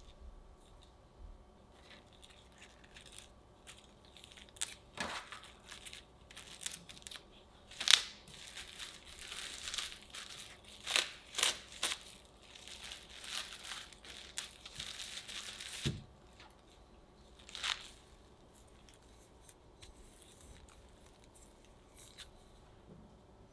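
Plastic cling wrap crinkling and crackling in irregular bursts as it is folded around a lump of cookie dough and pressed down by hand, with a soft thump about two-thirds of the way through.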